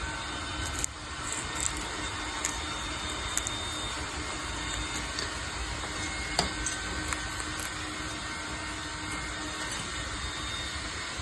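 Steady background hum like a fan or appliance running, with a few sharp small clicks and crunches from a sun conure biting into corn.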